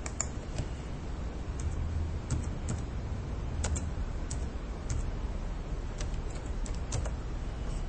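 Computer keyboard being typed on: irregular single key clicks as a password is entered, over a low steady hum.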